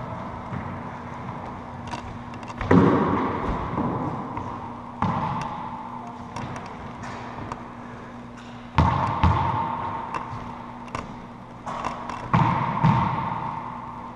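Racquetball being struck and hitting the court walls: four loud smacks a few seconds apart with fainter taps between, each ringing on in the echo of the enclosed court.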